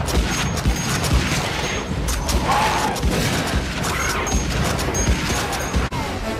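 Film-soundtrack gunfire from Morita assault rifles: many shots in quick, irregular succession over dense battle noise.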